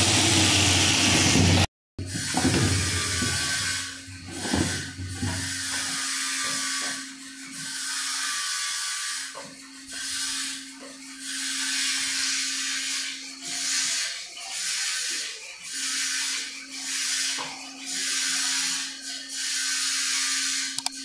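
Sandpaper rubbed by hand along a pine board in repeated strokes, a rasping hiss about once a second, over a steady machine hum. At the very start a loud, steady power-tool noise cuts off abruptly.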